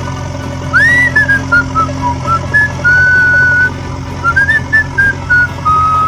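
A whistled melody of short gliding notes with a couple of longer held notes, over a steady low hum.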